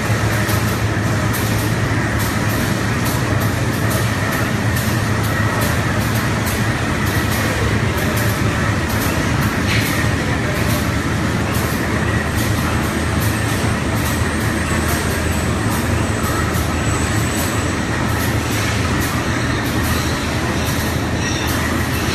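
Steady running noise of factory machinery: a continuous low hum with a dense scatter of faint ticks and clatter, unchanging throughout.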